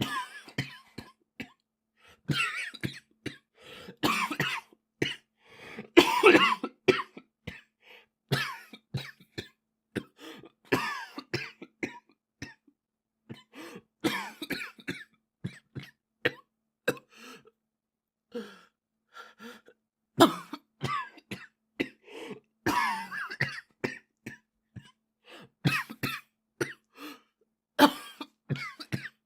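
A boy coughing over and over: short, sharp coughs, some single and some in rapid bouts of several, with brief pauses between the bouts.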